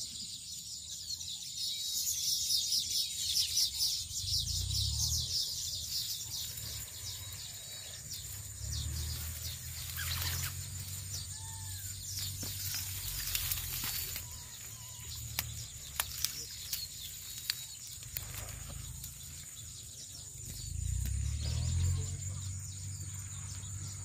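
Outdoor field ambience: a steady high-pitched insect drone, with scattered chirps of small birds and short rustling clicks from the reed stems. A low rumble comes and goes three times.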